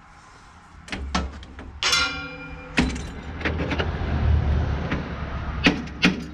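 Metal clanks and knocks as hand tools work on the pickup teeth and strippers of a John Deere 530 round baler: a few sharp knocks, a ringing clang about two seconds in, and scraping and rubbing of metal between them.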